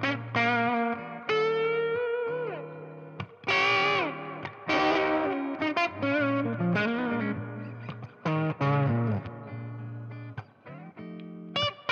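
Maybach Lester 59 electric guitar played through a ZVex Box of Rock distortion pedal into a Milkman 5-watt amp. It plays a distorted single-note lead line, with held notes and several string bends that glide in pitch.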